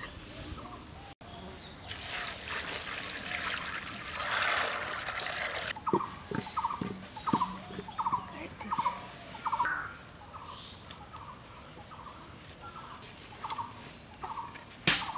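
Water poured into an iron wok of dry gram (chickpeas) for a few seconds, then poultry calling in a run of short repeated calls, one or two a second, with small birds chirping now and then.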